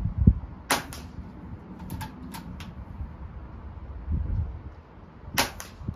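Weihrauch HW110 PCP air rifle being shot from a bench rest: sharp cracks about a second in and again near the end, with lighter metallic clicks in between as the action is worked. A dull thump comes just before the first crack, over a low steady rumble.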